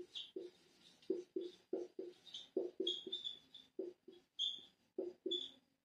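Marker pen writing on a whiteboard: a quick, uneven run of short strokes, about three a second, several with a high squeak as the tip drags over the board.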